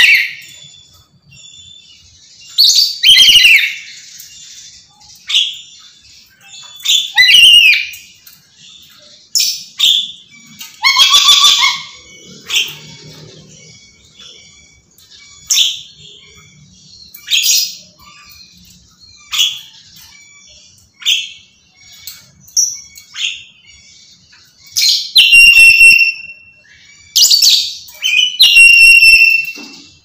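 Black-capped lory screaming repeatedly: loud, shrill screeches and shorter chirps every second or two, several of the longest calls near the start and end.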